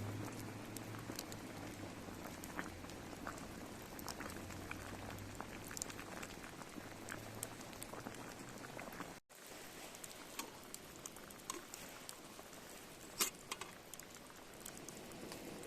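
Wood campfire crackling with many small irregular pops and one sharper pop about thirteen seconds in. The sound cuts out for an instant about nine seconds in.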